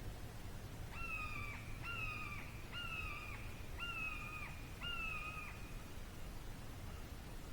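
A bird calling five times in a row, about once a second: each call a clear, drawn-out note that holds level and drops off at the end.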